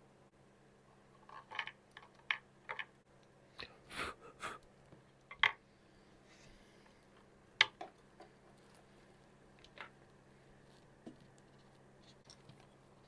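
Scattered light clicks and taps of hand tools and wiring being handled at a guitar's control cavity, the sharpest a little past halfway, over a faint steady low hum.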